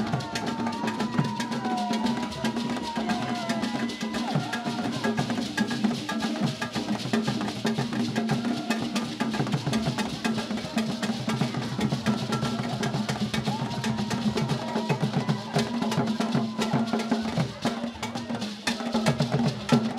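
Akan traditional drum ensemble playing a fast, dense rhythm of drum strokes that runs without a break.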